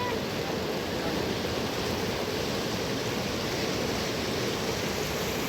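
Steady rush of a fast-flowing mountain river, an even noise without breaks.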